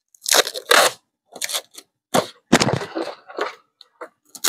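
Irregular crackling and rustling handling noises in several short bursts as a stick is fitted onto a homemade boga.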